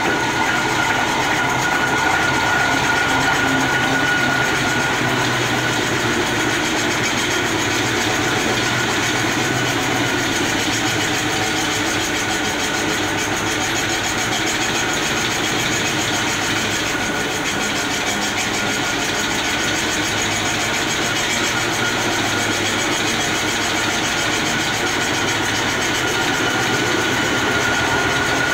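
Small rotary veneer-peeling lathe running steadily, turning a poplar log against its knife and peeling it into a continuous sheet of thin veneer. Steady machine noise with a high whine over it.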